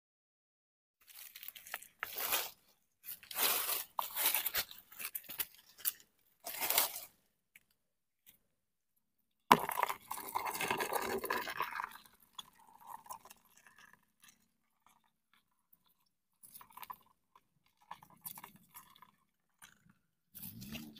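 Crackling, rustling handling noise from a plastic container and dry leaves: short bursts over the first several seconds, a sudden louder scraping rustle about ten seconds in that lasts a couple of seconds, then faint scattered rustles near the end.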